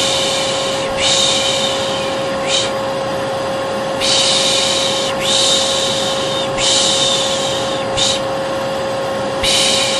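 Vacuum cleaner motor running steadily with a constant whine, overlaid by a person shushing "shh" in a repeating rhythm of two long shushes and a short one, as used to lull a baby to sleep.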